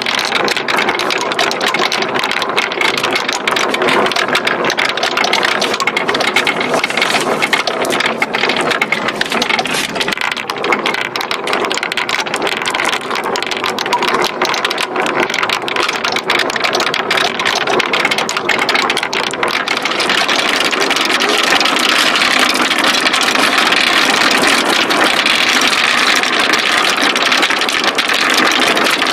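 Many marbles rolling and clattering down a wooden slope track, a continuous dense rattle of small clicks that grows a little louder about two-thirds of the way in.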